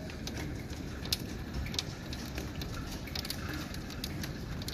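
Hailstones striking hard surfaces: irregular sharp ticks, a few a second, over steady low-pitched noise from the storm.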